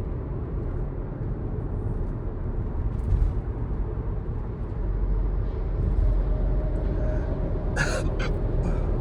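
Steady road and engine noise inside a moving car's cabin, broken by a man's short, sharp hiccup near the end, with a fainter catch about three seconds in.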